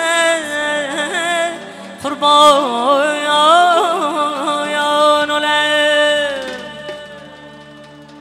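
A woman singing an Uzbek song live into a microphone: a melismatic, ornamented line with vibrato over a steady held keyboard drone. It ends in a long note that slides down and fades out about six to seven seconds in, leaving the drone quiet near the end.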